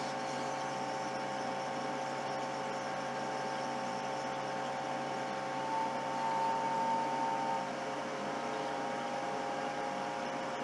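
SIKA TP Premium temperature calibrator running while it heats: a steady hum with a few whining tones over it. One tone gets louder for about two seconds, about six seconds in.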